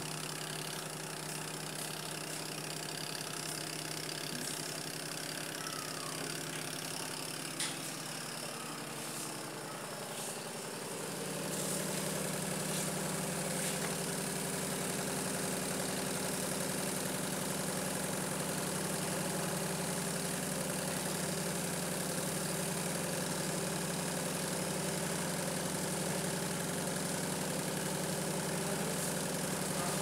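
Electric motor of a National NA-250T washing machine running with a steady hum. A single click comes about seven and a half seconds in, and the hum grows louder and fuller about eleven seconds in.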